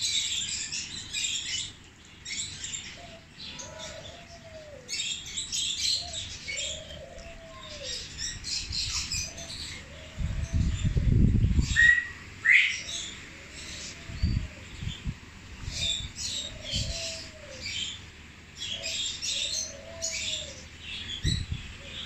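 Many small cage birds in an aviary chirping and twittering in quick clusters throughout. A low arching call repeats about every second and a half from about three seconds in, and low rumbling thuds come near the middle.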